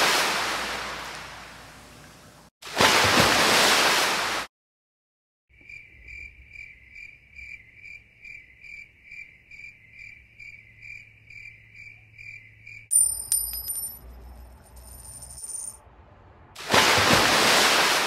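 A string of edited nature sound effects. Two loud surges of rushing noise like surf come first; the second cuts off abruptly. After a short silence comes a rhythmic insect-like chirping about two and a half times a second, then a sudden bright ringing chime lasting a few seconds, and near the end another surge of surf-like noise.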